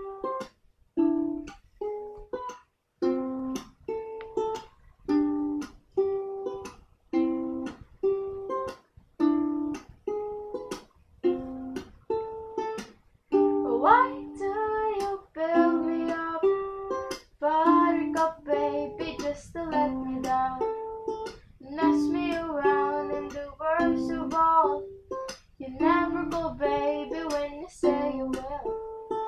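Strummed chords on a plucked string instrument, about one a second at first, then played more busily with more notes from about halfway through.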